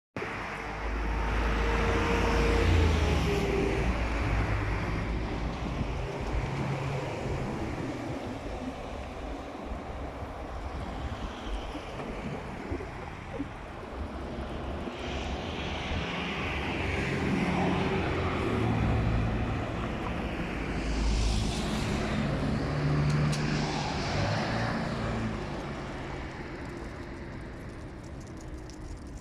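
Motor vehicles passing, with engine hums and rushing noise that swell and fade one after another over a constant background.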